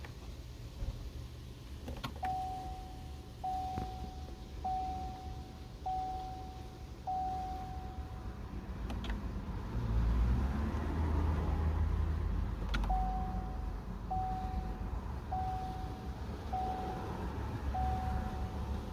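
2016 Chevy Cruze dashboard warning chime, sounding two runs of five evenly spaced beeps at one steady pitch, with a few sharp clicks and a low rumble in the middle. The car's electrics have power, but the engine does not crank.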